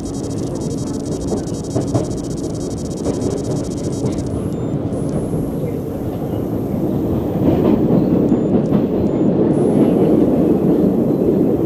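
MBTA Orange Line subway train running at speed, a steady rumble heard from inside the car. It grows louder about seven seconds in as a train on the next track passes close by the window.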